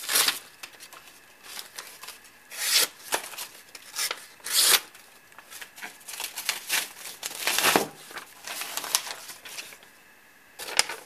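Sharp, heavy competition chopper knife slicing through hand-held sheets of paper: a run of quick, irregularly spaced papery rips, with the paper rustling between cuts.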